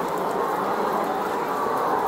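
A large flock of caged laying hens clucking and chattering all at once, a steady, dense sound of many birds.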